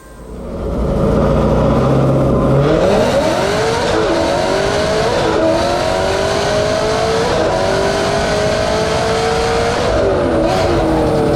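A V8 sports car engine runs steadily, then is floored about two and a half seconds in, climbing in pitch under full throttle. Its pitch dips sharply twice and recovers, like quick gear changes. It holds high revs and then lets off near the end.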